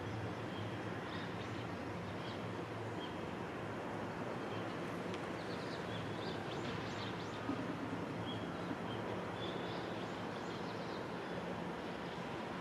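Steady, distant running sound of a JR Freight EF210 electric locomotive and its container train approaching, with small birds chirping over it.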